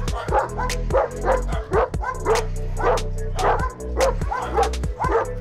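Caucasian Shepherd dog barking repeatedly at a gate, a sharp bark about every half second, over background music with a steady bass.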